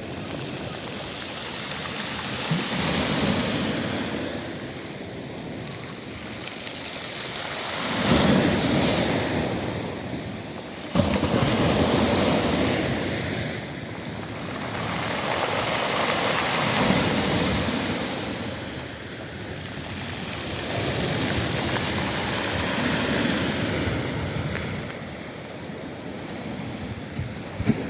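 Sea waves breaking on a pebble beach, the wash swelling and fading in slow surges every four to six seconds, one wave crashing in suddenly louder about a third of the way through.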